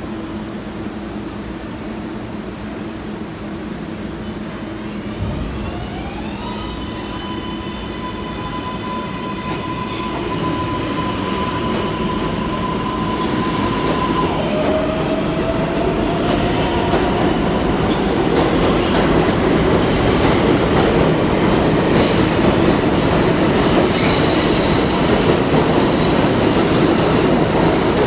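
R142A subway train pulling out of the station: its electric propulsion whines up through a staircase of rising tones about six seconds in, then holds a steady tone while the wheel and track rumble grows louder as the train picks up speed. High-pitched steady tones near the end, typical of wheels squealing on the curve.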